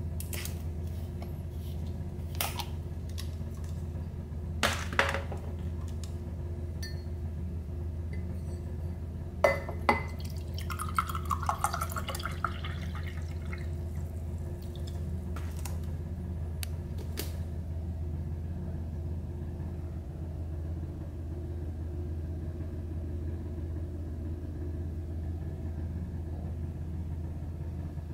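Plastic bottle cap clicking as it is twisted off, a sharp knock, then aloe vera drink pouring into a glass mug for about three seconds, followed by a few light clicks. A steady low hum runs underneath throughout.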